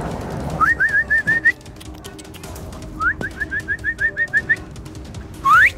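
A person whistling to call dogs: a quick run of short rising whistles, a pause, a longer run of about nine more, then one longer rising whistle near the end.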